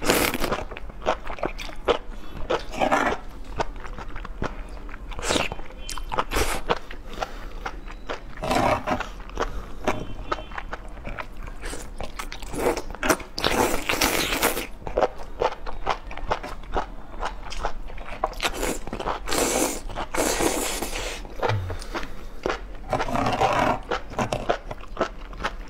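Close-miked eating sounds: strands of sauce-coated enoki mushrooms slurped up several times in long noisy pulls, between wet, crunchy chewing and bites. A fork scrapes and taps on the metal tray.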